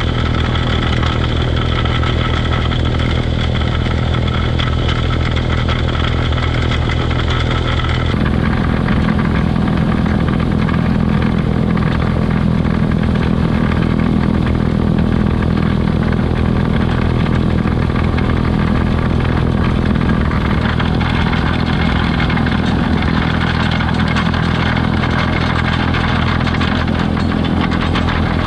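Kioti DK40se tractor's diesel engine and rear-mounted MK Martin PTO snowblower running steadily while throwing snow. The tone changes abruptly about eight seconds in, with the higher whine dropping away and a lower drone growing stronger.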